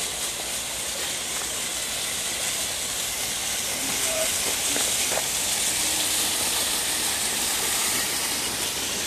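Steady rushing hiss of flowing creek water, with a few faint clicks over it.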